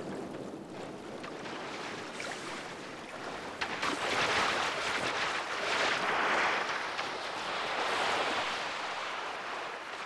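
Sea water splashing and churning at the surface, growing louder about a third of the way in, as a white shark strikes a seal.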